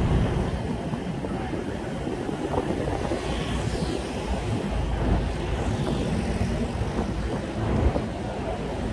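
Wind buffeting a smartphone microphone aboard a moving double-decker heritage tram, over the steady rumble of the tram running and of road traffic alongside.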